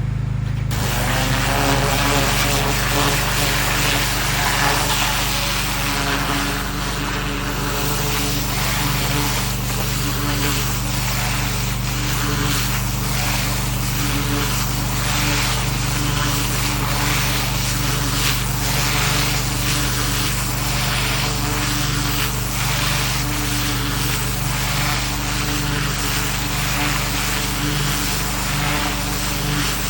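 Pressure washer running with a steady motor hum, its high-pressure water jet hissing as it blasts weeds and soil in a garden bed. The spray starts about a second in.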